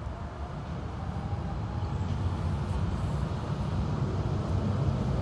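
Low rumble of passing traffic, growing gradually louder.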